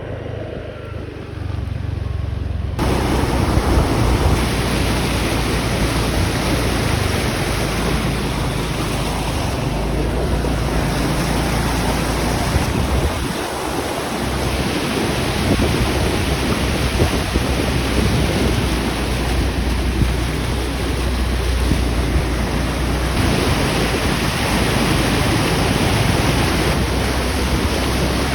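Loud, steady rushing of flowing water, with wind buffeting the microphone. The low rumble drops out briefly about halfway through.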